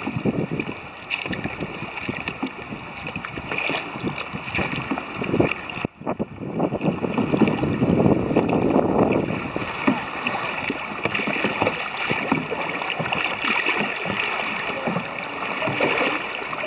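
Kayak paddles splashing and dripping in calm river water beside an inflatable kayak, with wind noise on the microphone. The sound breaks off briefly about six seconds in.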